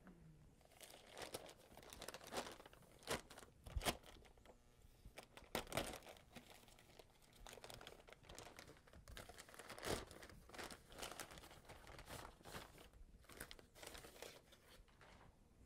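Black plastic bag crinkling and rustling as it is unwrapped and pulled off a printer imaging (drum) unit. It comes as a run of irregular crackles with a few louder rustles.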